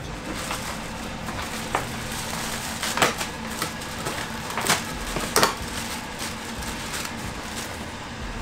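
Steady hum of a running heat-recovery ventilation unit, with a few sharp clicks and knocks as its parts are handled during reassembly.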